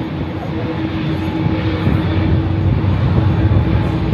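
Jet airliners' engines running on an airport apron: a steady rushing noise, heaviest in the low end, with a constant droning hum.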